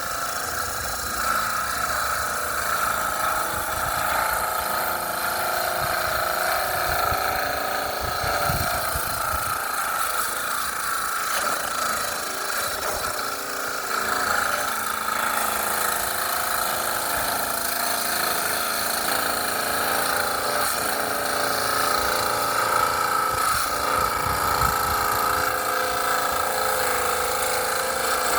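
Electric power tool running steadily with a constant whine, working wood.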